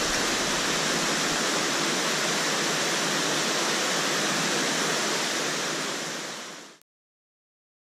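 Waterfall pouring into a pool in a mountain torrent: a steady rush of falling water that fades out about six seconds in, leaving silence.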